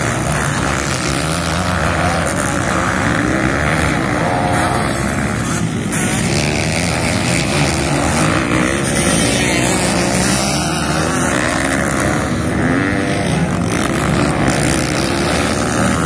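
Several motocross dirt bikes racing together, their engines revving with overlapping notes that rise and fall as the riders work the throttle over the jumps.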